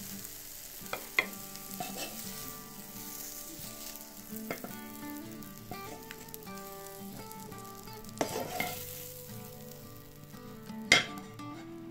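Oil sizzling in a frying pan as fried onion rings are lifted out with a wooden spatula, with a few sharp taps of the spatula, the loudest about a second in and near the end.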